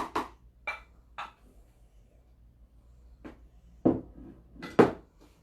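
Spoon knocking and scraping against a mixing bowl as flour is stirred into banana bread batter: scattered sharp knocks, a cluster in the first second or so and two louder ones about four and five seconds in.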